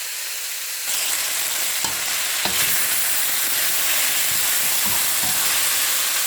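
Chicken breast and French green beans sizzling in an oiled cooking pot, a steady frying hiss that grows louder about a second in, with a few light knocks of a utensil.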